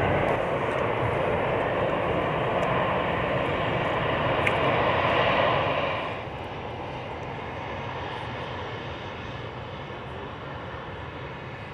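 Antonov An-124's four Progress D-18T turbofan engines at takeoff power, a loud steady jet rush as the aircraft lifts off and climbs. About six seconds in the sound drops sharply and goes on fainter as the aircraft climbs away.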